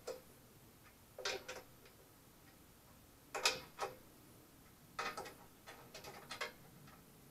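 Short bursts of sharp metal clicking, in four groups a second or two apart with the longest run near the end, as a wooden board is fastened onto the top of a steel air tank by hand.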